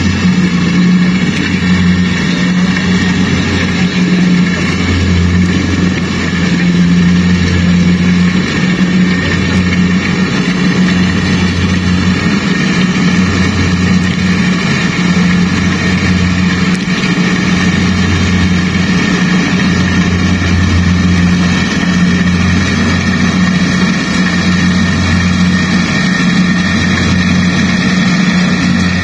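Rice combine harvester running steadily: a low engine hum that swells and eases every second or two, with a steady high whine from the machinery over it.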